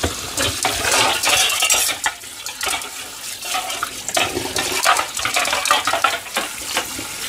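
Metal spoon clinking and scraping against a small metal pot over a stainless-steel sink, in a string of irregular clatters.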